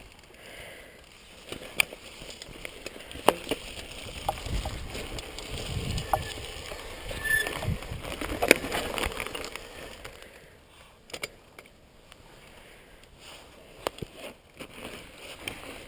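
Mountain bike rolling over a dirt trail: a rough tyre rumble with sharp rattling knocks from the bike over bumps, loudest in the middle and quieter after about ten seconds.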